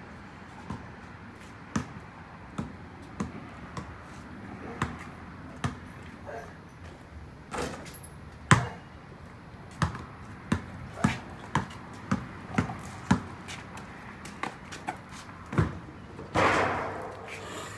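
Rain dripping onto a hard surface: sharp, irregular taps and knocks, about one or two a second, over a faint steady hiss, with a brief louder rushing noise near the end.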